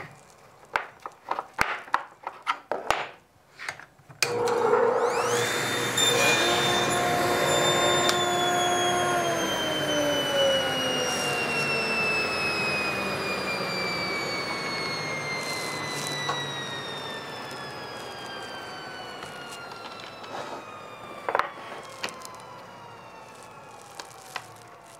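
A few handling clicks, then a table saw switched on about four seconds in: its whine rises to speed, it runs through a short shallow cut into the jig's wood, and once switched off the whine falls slowly as the blade coasts down.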